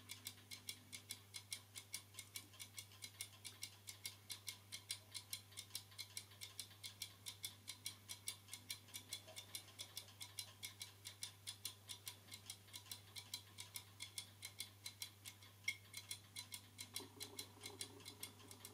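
Platform escapement of a restored mantel clock ticking faintly in quick, even beats, about four or five a second, running only after a helping start. The owner puts its failure to keep going down to a badly rusted, worn escapement pinion.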